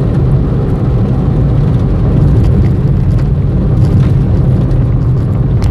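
A Chevrolet Beat's engine and its tyres on wet asphalt, heard from inside the cabin while driving at a steady pace: a constant low drone with tyre hiss over it.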